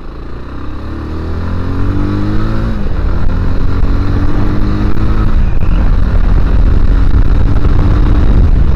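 Motorcycle accelerating away, its engine pitch rising through a gear change or two over the first few seconds, then wind rushing over the microphone, growing louder as speed builds.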